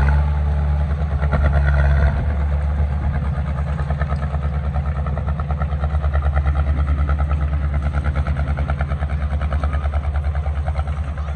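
Diesel engine of heavy earthmoving equipment running: a steady low drone with a fast, even rattle that sets in about two seconds in.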